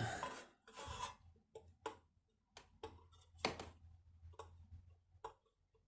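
A string of irregular clicks and light knocks, about eight at uneven spacing, from hands handling the parts and packaging of a sliding door closer.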